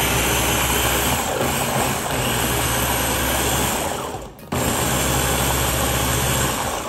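Ninja food chopper's motor running steadily under the press of its power head, blending a thick sauce. It stops briefly about four seconds in, then starts again and runs until near the end.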